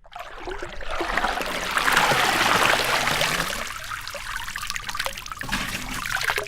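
Water running and trickling, swelling to its loudest about two seconds in, then thinning to a lighter trickle with scattered drips and splashes.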